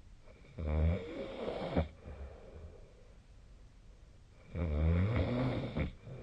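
A sleeping person snoring: two snores about four seconds apart, each a little over a second long.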